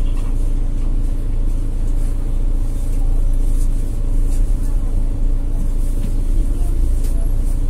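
Mercedes OM936 inline-six diesel of a Citaro C2 G articulated bus running steadily, a constant low engine hum and rumble heard inside the passenger cabin.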